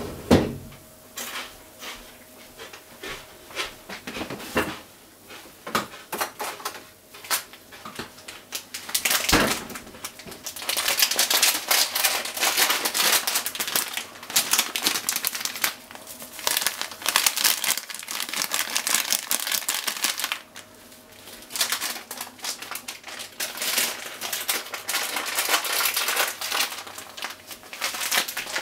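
A plastic packet crinkling and rustling in long stretches, with scattered clicks. A sharp knock comes right at the start and another about nine seconds in.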